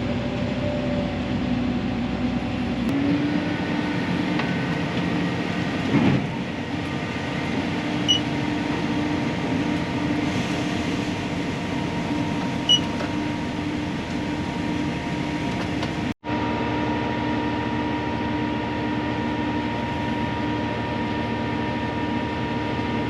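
Heavy farm machinery engine running steadily through corn harvest, a continuous droning hum with a steady whine. There is a brief knock about six seconds in, and the sound cuts out for an instant about sixteen seconds in.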